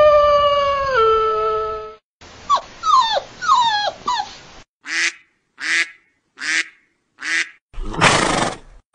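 A series of dog-like animal sounds. First a held howl drops in pitch and ends about two seconds in. Then comes a quick run of four falling yelps, then four short, evenly spaced raspy calls, and near the end one harsh hissing burst.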